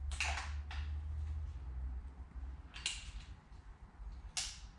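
Short mechanical clicks and scrapes of a BSA Scorpion Cadet .177 air rifle being handled to load it, with its magazine going in and the action being worked. There are four sharp sounds spread across a few seconds.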